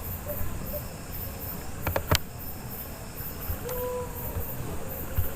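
Background noise through the recording microphone: a low hum with a faint high chirping repeating about twice a second, broken by a few sharp clicks about two seconds in and a brief short tone near four seconds.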